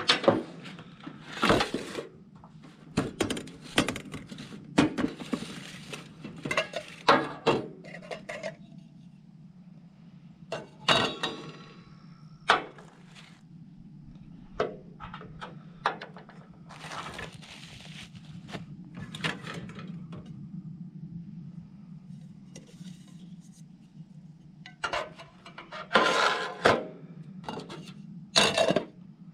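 Metal camp cookware clinking and clattering as pots, lids and utensils are handled, in irregular clusters of knocks over a steady low hum.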